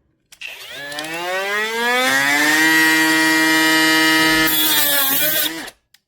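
SEESII cordless brushless angle grinder spinning up with a rising whine, running at a steady pitch, then a harsher hiss joins for about a second before the motor is switched off and stops.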